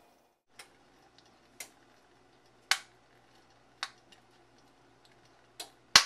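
An egg frying in olive oil in a covered fry pan: sharp pops about once a second over a faint sizzle, the loudest near the end.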